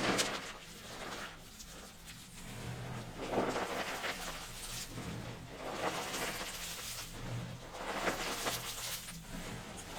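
Starch-dusted soap crunching as it is worked, in a series of crackly swells that come every second or two.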